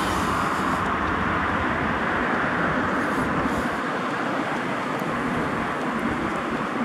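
Steady road traffic noise, a continuous hiss of passing cars with no single vehicle standing out.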